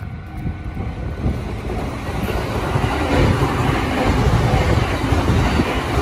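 A yellow-striped JR Chūō-Sōbu Line local electric commuter train approaching and passing through a level crossing. Its rumble and wheel noise on the rails build from about a second in and are loud and steady from about three seconds in.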